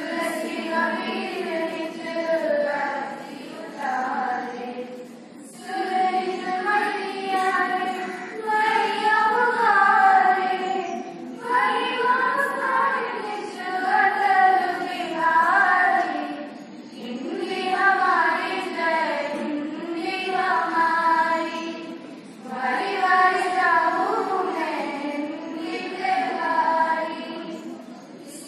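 A group of children singing together in unison, in phrases of about five seconds separated by short breaths.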